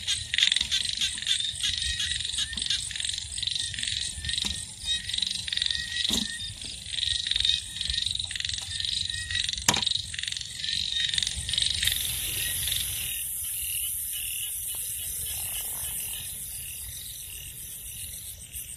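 Frogs calling in a dense pulsing chorus with insects trilling; from about twelve seconds in a steady high insect buzz takes over and the frog calls thin out. A sharp click about ten seconds in.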